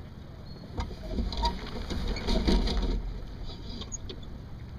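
Sunfish sailboat under way: water splashing along the hull with wind rumbling on the microphone. From about one to three seconds in it grows louder and busier, with several sharp knocks, as the boat comes about.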